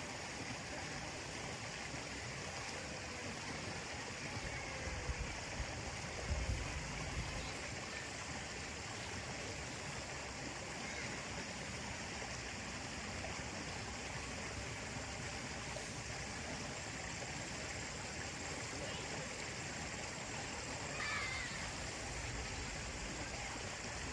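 Steady rush of a river's flowing water, an even hiss, with a few low thumps about five to seven seconds in.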